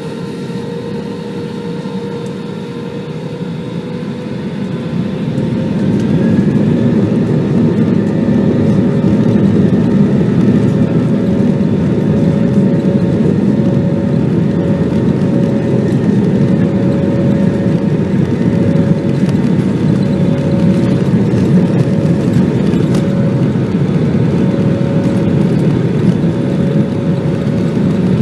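Airbus A320's jet engines heard from inside the cabin, spooling up: their steady whining tones rise and the level climbs over the first several seconds, then they hold at high thrust with a loud, steady rushing noise.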